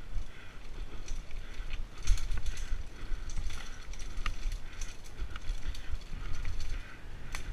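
Mountain bike being ridden over a dirt singletrack trail: a steady low rumble from the tyres and the shaking mount, broken by irregular clicks and rattles from the bike's chain and frame over bumps.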